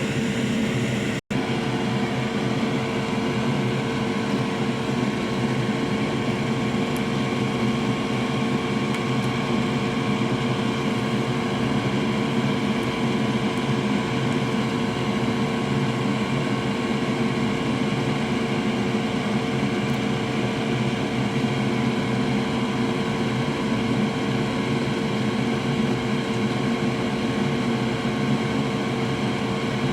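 Steady whirring drone of a small motor running, with a constant hum tone; it cuts out for an instant about a second in.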